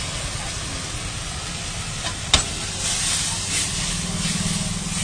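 Chicken lollipops sizzling in hot oil in a wok while a spatula stirs them. A sharp clank of the spatula on the wok comes a little over two seconds in, and the sizzling hisses louder after it.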